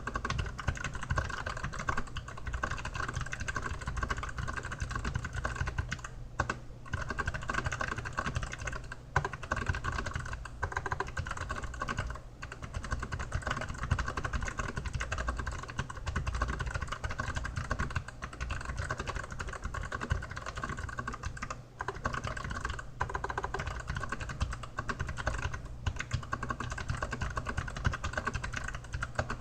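Fast continuous typing on an Archon AK87 mechanical keyboard with Kailh Box White switches, rapid clicky keystrokes, with brief pauses about six and a half seconds in and again a little after twenty-one seconds.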